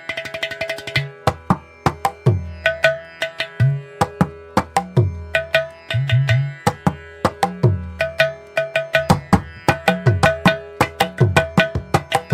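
Instrumental Indian background music: tabla playing a quick, steady rhythm, with deep bass strokes that bend in pitch, over a held drone.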